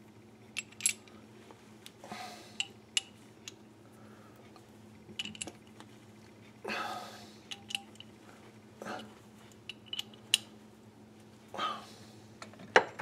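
Light metal clicks and clinks with a few short scraping swishes, scattered irregularly: a 1/4 inch reamer being handled and fitted into a keyed drill chuck by hand. A faint steady low hum runs underneath.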